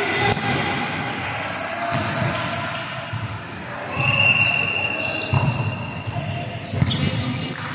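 A volleyball thudding on a hard indoor court floor a few times, with players' voices in a large hall. About four seconds in, a steady high tone sounds for just over a second.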